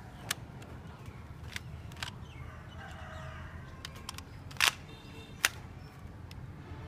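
LEGO Glock 18 model being fired and worked: about five sharp plastic clicks and snaps spaced irregularly, the loudest a short double snap a little past halfway, followed by another under a second later.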